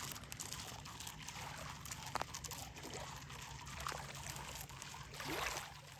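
Shallow lake water lapping and trickling at the shoreline, with a louder wash of water near the end.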